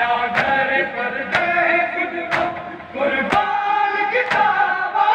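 Crowd of men chanting a noha together, with hands striking bare chests in unison about once a second in matam.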